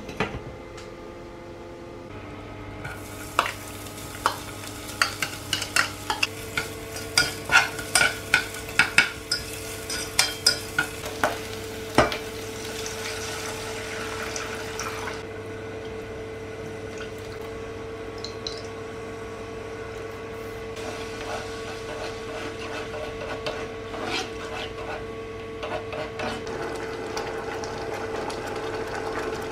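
A glass lid clinks down onto a steamer pot, then a spatula clinks and scrapes against an aluminium saucepan as chopped aromatics sizzle in oil, a quick run of strikes for about ten seconds. The sizzle stops about halfway as a starch-water slurry goes in, leaving a simmering sauce with occasional stirring clicks over a steady hum.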